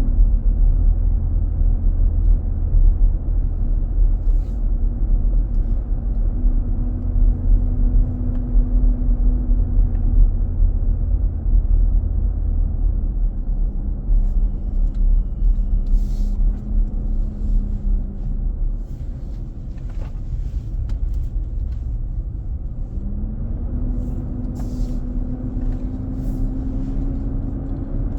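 Loud, steady roar of a 2023 Nissan Armada's engine cooling fan, heard from inside the cabin while driving, which the dealer traced to the fan clutch staying engaged. A droning tone runs under the rumble: it drops just after the start, steps lower partway through, and climbs again near the end.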